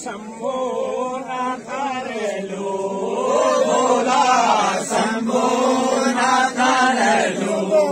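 A group of men singing a Nanda Devi Raj Jat devotional folk song together in a chant-like chorus, growing louder about three seconds in.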